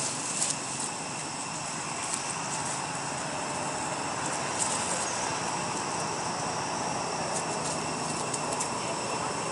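Steady outdoor background hiss with faint steady high tones, broken by a few short faint clicks.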